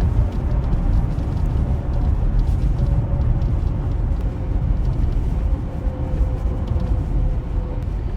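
Steady low road and tyre rumble inside the cabin of a moving Tesla Model Y Juniper RWD, an electric car with no engine note, with faint scattered light ticks over it.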